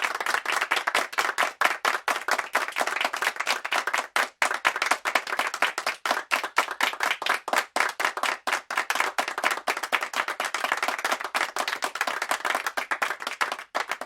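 A small audience applauding in a small studio: many hands clapping in a dense, steady patter that thins to a few scattered claps at the very end.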